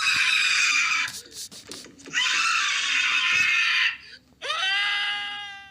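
Cartoon character scream sound effects, three in a row. Two are harsh, raspy screams about two seconds long, separated by a short gap. The third is a higher, clearer wailing scream that sags slightly in pitch and fades away near the end.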